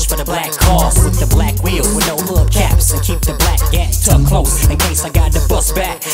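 Hip hop track playing: a heavy bass line and drum beat under a rapped vocal.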